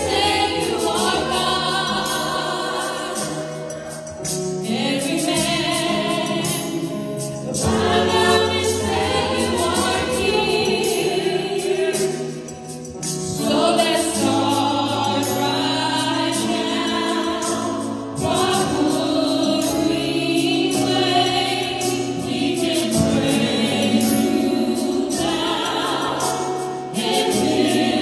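Live gospel song sung by a small group of women vocalists through microphones, with musical backing, in phrases a few seconds long.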